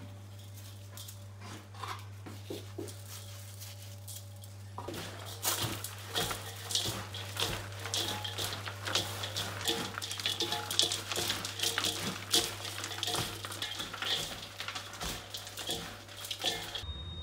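Gloved hands mixing a chopped meat and onion filling in a large stainless steel bowl: a dense run of short crackling, rustling sounds that starts about five seconds in, after a few scattered light clicks while spice is shaken in. A steady low hum sits underneath.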